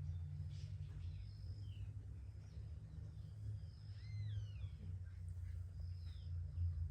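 Songbirds calling: short high whistles and slurred notes that fall in pitch, the clearest about four seconds in, over a steady low rumble.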